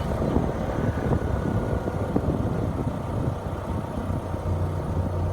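Car engine idling steadily just after an oil change, run so the fresh oil fills the new filter and circulates while the drain plug and filter are checked for leaks.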